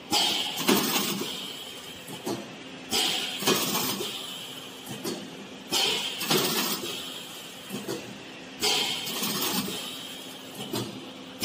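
Stainless-steel blade-type carrot peeler running with a steady hum. About every three seconds a carrot enters the spinning blade head, making a sudden scraping rush that fades over the next couple of seconds, with light clicks and clinks in between.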